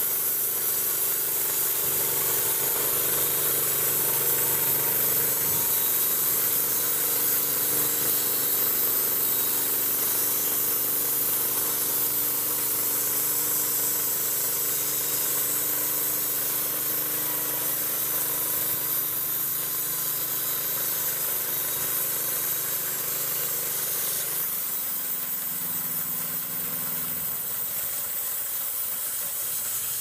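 Small gasoline engine running a homemade tire-wheel bandsaw mill while the band blade cuts through a squared cedar log, a steady engine note with a broad hiss over it. About 24 seconds in the engine note drops lower, then fades near the end as the cut finishes.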